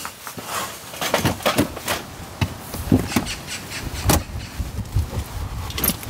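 A car's rear seat being folded and pressed down by hand: a run of irregular knocks and clunks from the seat and its fittings.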